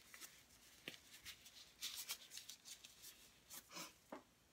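Faint, irregular rustling and crinkling as things are handled, with a soft tap about a second in.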